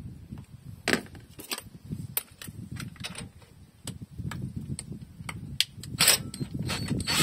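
Irregular metallic clicks and knocks from hands and a cordless tool working at the ring gear of an open rear axle differential, over a low rumble. The loudest knocks come about a second in and again around six seconds in.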